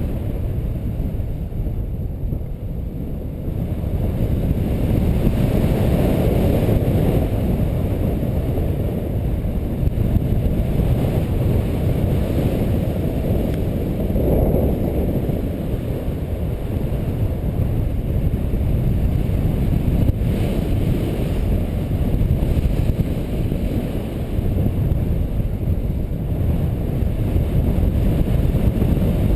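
Wind rushing over the microphone in paragliding flight: a loud, low, rumbling buffet that wavers in strength, dipping briefly a few seconds in.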